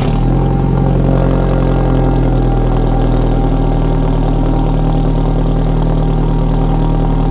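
Alfa Romeo 4C's turbocharged 1.75-litre four-cylinder engine idling just after a cold start, heard at the exhaust. The fast idle eases down slightly over the first couple of seconds, then holds steady.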